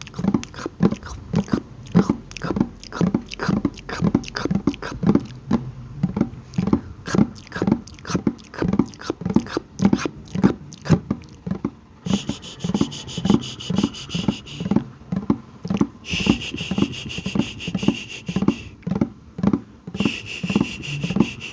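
ASMR mouth sounds: a steady run of wet pops and clicks, about two or three a second. In the second half a higher hissing layer joins in at times.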